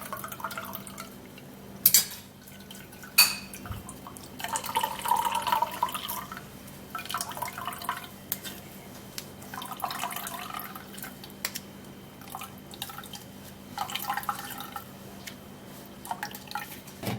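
Blended carrot juice being strained through a strainer into a glass: liquid trickling and dripping in spells. Two sharp clinks come about two and three seconds in.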